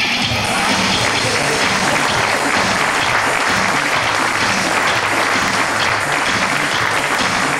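Audience applauding steadily over stage music.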